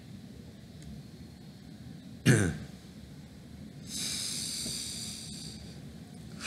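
A man coughs once, short and sharp, about two seconds in. About four seconds in comes a softer, longer breath out lasting a second and a half or so.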